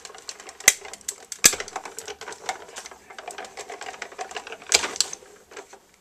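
Cuttlebug die-cutting machine being hand-cranked, its rollers pressing a stack of cutting plates, a metal die and kraft paper through to cut the paper. A steady mechanical grinding with scattered sharp clicks, the loudest about a second in and again near the end.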